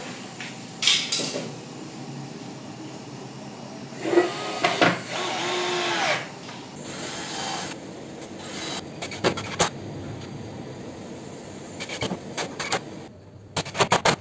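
Cordless drill driver running for about two seconds under load, its pitch sagging as it drives a screw into wood, among scattered knocks and clicks from boards and quick clamps being handled.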